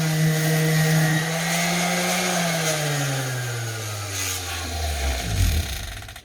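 A motor running at a steady pitch, then winding down, its pitch falling steadily over about three seconds as it slows after being switched off. The sound cuts off abruptly at the end.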